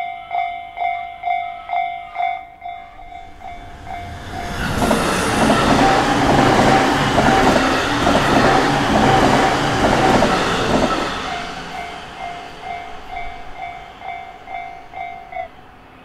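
A Japanese level-crossing warning bell rings in quick, even strikes, about two or three a second. An electric train passes, loudest for several seconds in the middle, its wheels clacking over the rail joints. The bell stops shortly before the end.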